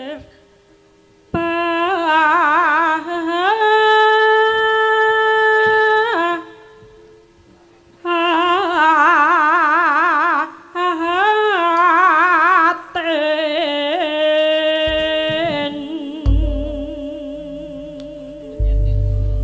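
Javanese female sinden singing a tembang solo into a microphone, in long held phrases with heavy vibrato and short pauses between breaths. Near the end, held instrument tones and two deep booming strokes enter, the gamelan coming in under the voice.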